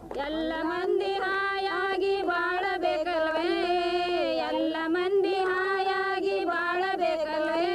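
Village women singing a Kannada folk song together, drawing out long held notes in a wavering melody, about working together and developing their own communities.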